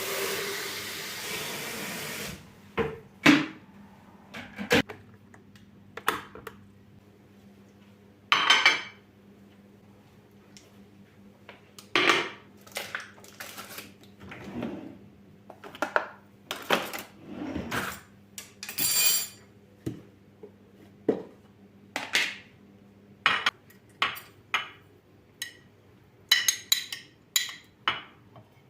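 Kitchenware being handled: a long run of separate clinks and knocks of dishes and utensils, after a couple of seconds of loud rushing noise at the start. A faint low hum runs underneath.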